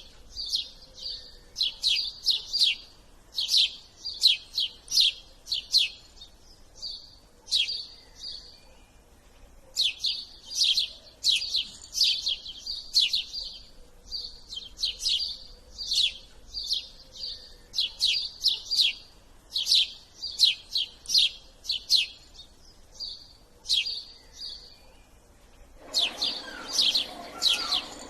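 Small birds chirping: rapid series of sharp, high chirps in phrases separated by brief pauses. A duller, lower noise joins near the end.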